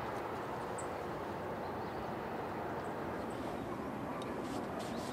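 Steady outdoor background noise, a constant even hiss with no clear source, with a few faint short high chirps or ticks.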